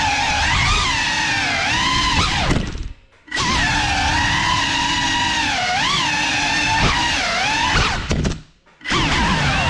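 Brushless motors of a GEPRC Cinelog 35 cinewhoop drone whining, the pitch rising and falling as the throttle changes. It cuts out twice for a moment, about three seconds in and again near the end, then comes back.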